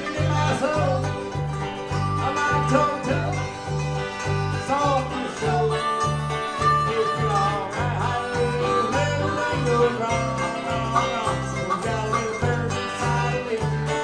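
Live bluegrass band playing an instrumental break: a harmonica leads with bending notes over picked banjo, acoustic guitars and mandolin, with a steady bass pulse about twice a second.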